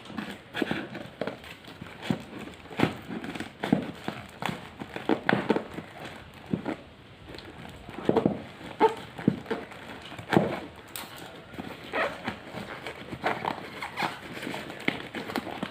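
Packaging being handled and opened, with irregular crackling and rustling and sharp clicks.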